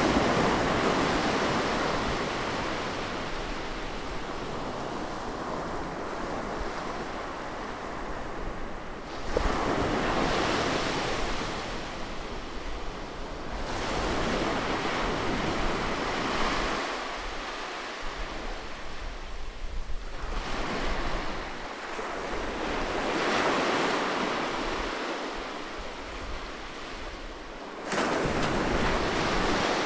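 Ocean surf close by: waves breaking and washing up the shore one after another, swelling and fading every few seconds, with a sharp, loud break near the end.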